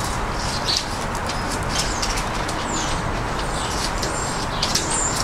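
Steady background noise with small birds chirping several times over it, and a few short clicks.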